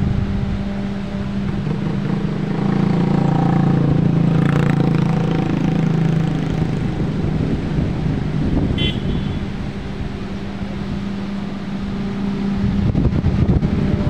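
A steady engine hum that swells for a few seconds in the middle, over the constant rush of water pouring over a weir. A brief high chirp comes about nine seconds in.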